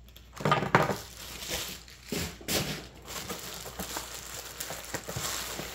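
Plastic packing material crinkling and rustling as it is pulled out of a cardboard box, in irregular handling bursts, the loudest about a second in.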